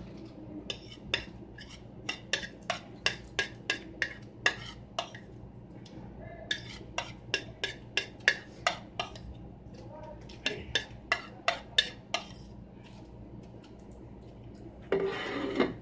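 Spoon clicking and scraping against a plate while eating, in quick runs of taps about three a second with pauses between them. A short noise near the end.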